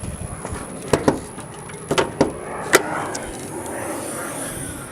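Several sharp knocks and clicks, paired about one and two seconds in and a single one near three seconds, followed by a stretch of rustling noise.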